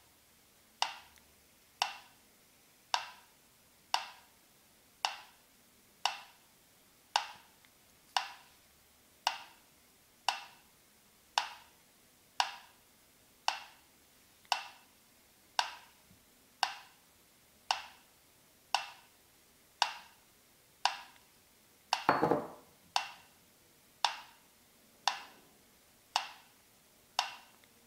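Mechanical pyramid metronome ticking steadily, about one tick a second. About three-quarters of the way through, a short clatter as a white ceramic mug tips over onto the table.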